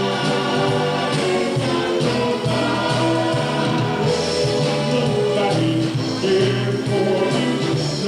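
Live band playing a song with several voices singing over a steady bass line.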